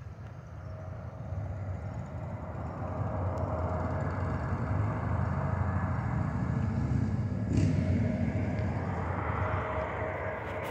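Jet airliner on approach, its engines a rumble and rising hiss with a steady whine, getting louder as it comes nearer. A brief sharp click about seven and a half seconds in.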